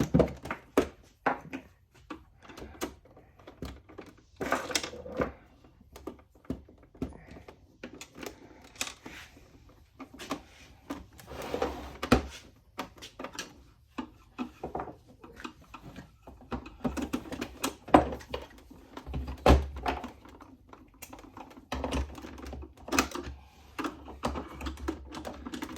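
Irregular clicks, taps and knocks of screws and small tools being handled against the plastic case of a Kawasaki Sax-A-Boom toy saxophone as it is screwed back together.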